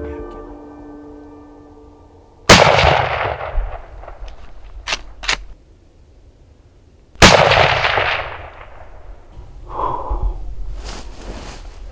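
Two shots from a Henry Long Ranger .308 lever-action rifle, about five seconds apart, each a sharp crack with a long echo rolling away; the second is a follow-up shot at a buck that is still running. Two quick clicks between the shots as the lever is worked.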